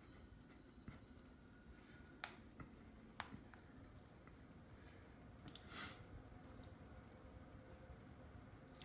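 Near silence, with faint dripping and a few light ticks as milk runs in a thin stream from a cut-open plastic milk bag into a glass.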